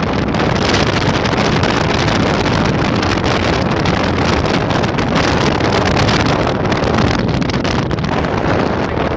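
Wind buffeting a phone's microphone: a loud, rough rushing noise that flutters rapidly.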